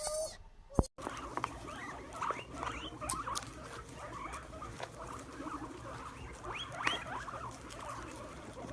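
Many small animals squeaking and chirping at once, with lots of short, rising high squeaks.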